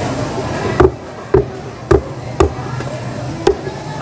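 Knife chopping through a giant trevally, five sharp strikes about half a second apart, with a longer pause before the last.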